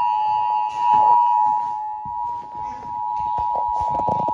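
Emergency Alert System attention signal: a steady two-tone alarm, held without a break, announcing a weather warning. Scattered short knocks sound faintly underneath.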